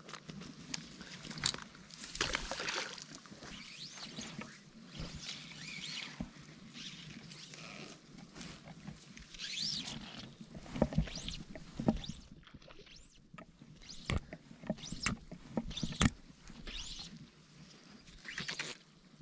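Close-up handling sounds of fly fishing from the bank: a brook trout splashing out of a landing net, then the fly line swishing on the cast and being stripped back. These come as a string of short scrapes, swishes and splashes.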